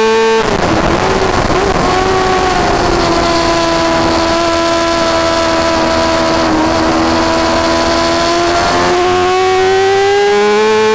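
Yamaha R6 inline-four sport bike engine heard onboard at high revs. About half a second in the revs drop suddenly, rough for a second or so, as the throttle is shut for a corner. They hold steady through the lean, then rise again near the end as the bike accelerates out.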